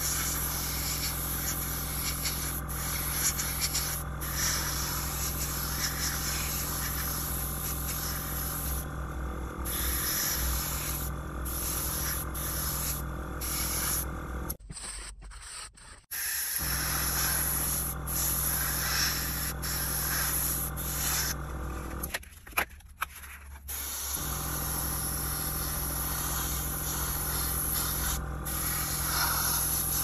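Gravity-feed airbrush hissing as it sprays paint, over a steady low hum, cutting out briefly twice, about halfway and again near three-quarters of the way.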